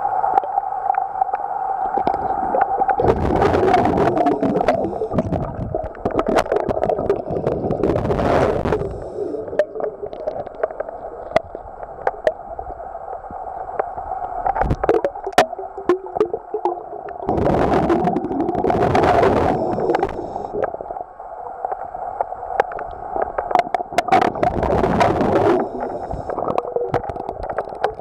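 Pool water heard through an underwater camera: a steady hum runs throughout, broken four times by louder gurgling rushes of water noise lasting a second or two each.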